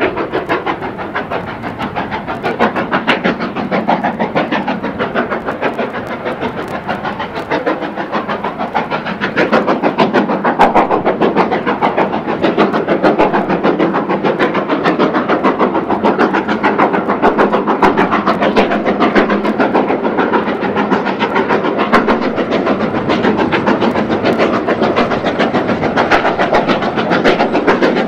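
Ex-Great Western steam locomotive working a passenger train, its exhaust beating in a fast, even rhythm over the clatter of the coaches on the rails. It gets louder about a third of the way through.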